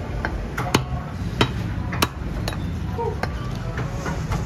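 Cleaver chopping goat-head meat and bone against a wooden chopping block: a series of sharp, uneven chops about every half second to a second.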